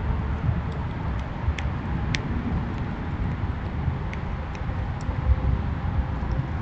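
Steady low outdoor rumble with a few short, high clicks, the clearest about two seconds in.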